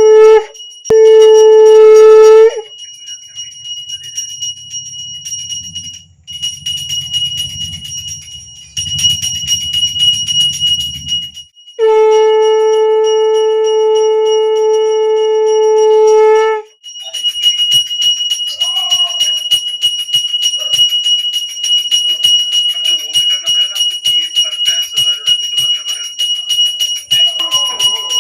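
Conch shell (shankha) blown in loud, steady, held blasts: a brief one at the very start, another about a second in, and a long one of about four and a half seconds midway. A hand bell rings continuously throughout, with rapid strokes in the second half, as is done at the offering during a Kali puja.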